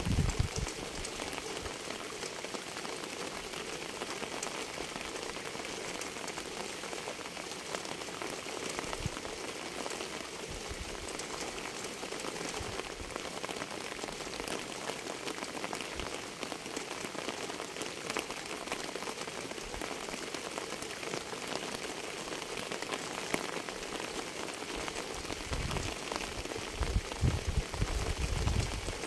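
Steady rain falling on a surface, a dense hiss full of small drop ticks, with a few deep low thumps near the end.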